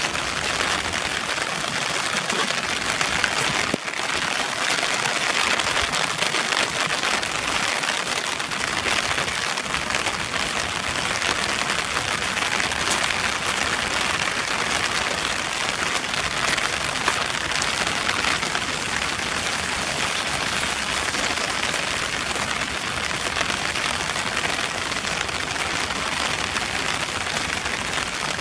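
Heavy rain falling steadily, a dense even hiss of drops.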